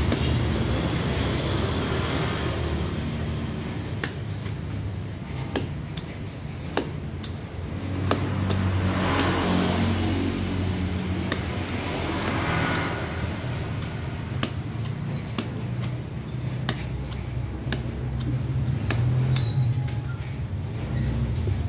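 Hand stapler driving staples into a motorcycle seat cover: a string of sharp single clicks at irregular intervals, over a steady low traffic rumble.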